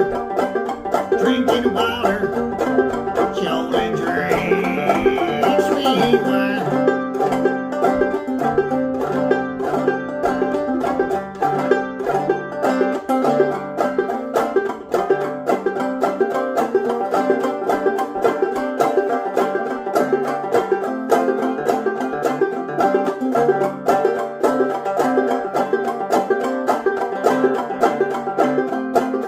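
Instrumental break of a bluegrass-style song: fast, dense plucked-string picking over a steady accompaniment, with a brief sliding high note about four seconds in.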